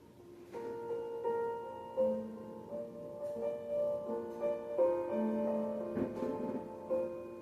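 Background piano music, single notes and chords sounding one after another and ringing out.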